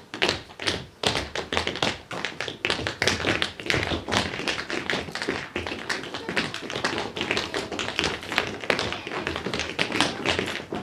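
Tap shoes striking a hard floor in fast, dense rhythms: tap dancing.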